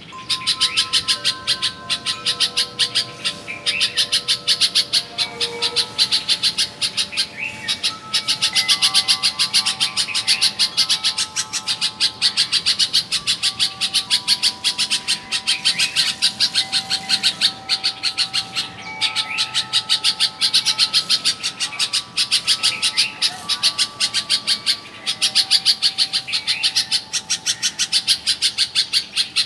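Bulbul calling in a fast, continuous run of short chirps, broken by brief pauses every few seconds.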